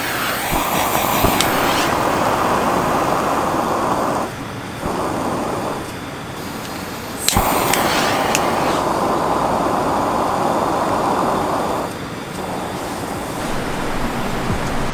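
Gas-cartridge mantle lantern with the gas burning at the mantle: a steady hiss. A sharp click comes at the very start and again about seven seconds in, and each is followed by about four seconds of hiss. Between them and after them the hiss is weaker.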